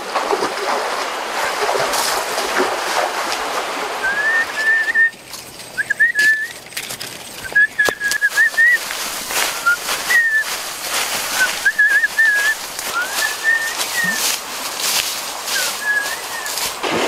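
A bird calls in short whistled phrases with quick up-and-down slides, repeated about once a second from about four seconds in. Underneath are rustling and crackling of dry leaves and plants underfoot.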